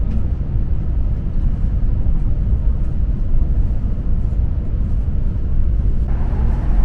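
Cabin noise inside a KTX-EUM high-speed train running at about 233 km/h: a steady, loud, low rumble without a clear pitch. Near the end the sound changes and more mid-range noise comes in.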